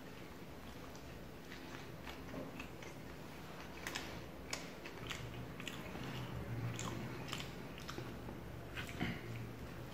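A person chewing food close to the microphone, with scattered short mouth clicks and smacks.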